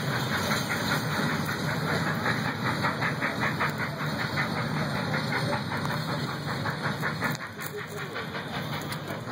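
Nickel Plate Road 765, a 2-8-4 Berkshire steam locomotive, chuffing from its exhaust in a quick even rhythm as it pulls a passenger train away. The beats grow fainter in the second half.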